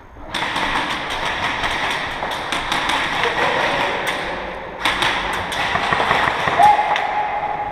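A dense, loud clatter of many quick knocks and taps, such as airsoft guns firing and BBs striking hard surfaces, with voices underneath. It starts abruptly just after the start and keeps going.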